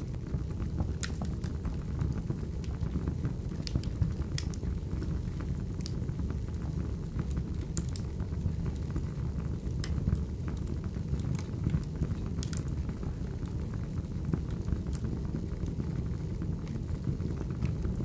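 Wood fire burning in a fireplace: a steady low rumble of the flames with irregular sharp crackles and pops from the burning logs.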